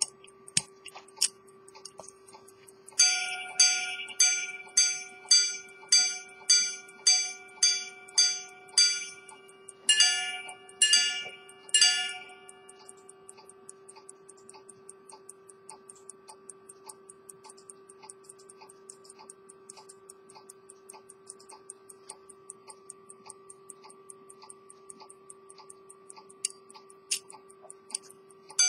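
Swiss quarter-repeating pocket watch from around 1900, movement open: the balance ticks steadily, and about three seconds in the repeater strikes its gong, a quick run of about a dozen ringing chimes, then three more a second apart, before the ticking carries on alone.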